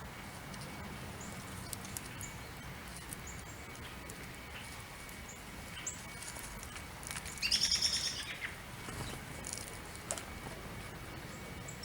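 Songbirds chirping: short, high chirps scattered throughout, and one louder, rapid chattering call lasting about a second, about seven seconds in, over a steady background hiss.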